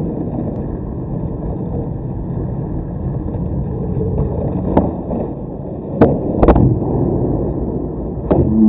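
Skateboard wheels rolling over asphalt with a steady low rumble, broken by four sharp board clacks, two of them close together about six seconds in: the tail pop and landing of a flip trick.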